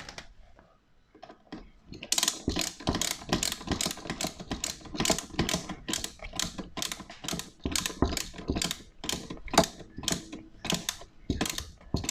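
Ratcheting screwdriver clicking in a quick, even rhythm, about three or four clicks a second, as a screw is driven back in. The clicking starts about two seconds in.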